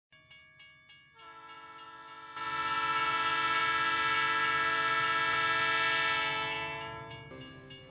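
A train horn sounding one long, steady chord for about six seconds. It swells about two seconds in and fades near the end, after a few evenly spaced clicks, about three a second, at the start.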